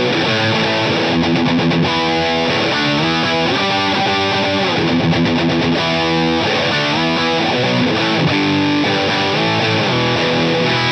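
Distorted electric guitar playing a chordal riff: a Music Man JP6 through the dirty channel of a Blackstar HT20 valve head into a Marshall 2x12 cabinet, with the compressor pedal bypassed.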